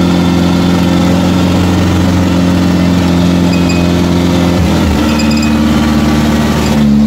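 Rice combine harvester's diesel engine running steadily while the machine drives through deep mud. About two-thirds of the way through, the engine note dips and settles at a changed pitch.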